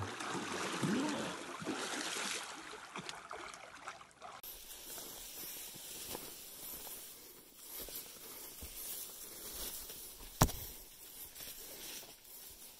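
Water splashing as a person swims in a lake. After a cut comes a quieter rustle of brush and leaves, with one sharp click about ten seconds in.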